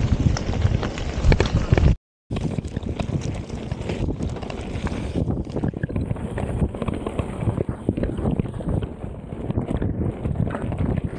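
Wind buffeting an action camera's microphone, with rattling and knocking from a mountain bike rolling over rough trail; the sound drops out briefly about two seconds in.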